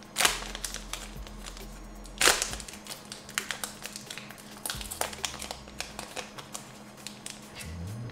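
Trading cards and a foil booster wrapper being handled: crinkling and rustling with light clicks and taps, loudest twice, near the start and about two seconds in.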